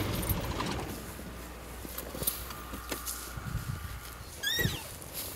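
Low hum of an idling safari vehicle engine, loudest in the first second, with scattered rustles and cracks of dry brush as an African elephant walks past close by. One short rising-and-falling bird chirp comes about four and a half seconds in.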